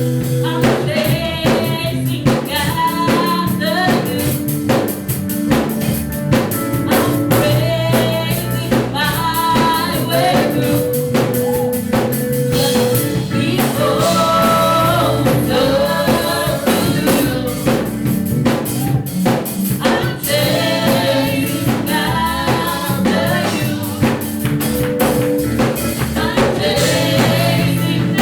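Live gospel praise-and-worship music: singers with backing vocals over a band with drum kit and bass, playing continuously.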